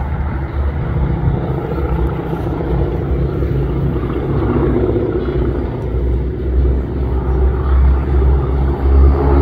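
Radial engines of a formation of North American T-6 Texan aerobatic planes (Pratt & Whitney R-1340 Wasp) running steadily in flight, a continuous propeller-driven rumble that grows a little louder near the end.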